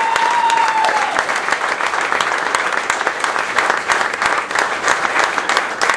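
Crowd of supporters applauding, a dense steady clapping. A single held high tone sounds over it for about the first second.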